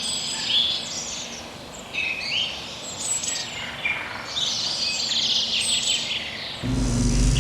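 Several birds chirping and singing in quick, overlapping calls. A low steady hum comes in near the end.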